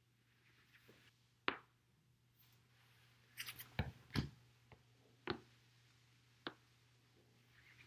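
Spinal joints cracking as the back is rolled over a foam roller: a sharp pop about a second and a half in, a quick run of several pops around the middle, then two more single pops.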